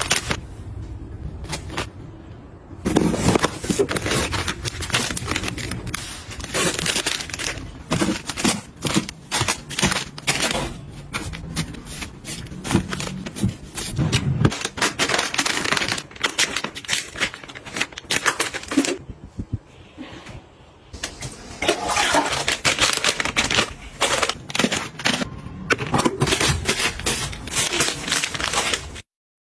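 Busy handling sounds of small objects being unpacked and arranged: clicks, taps, knocks and rustling scrapes, cutting off abruptly near the end.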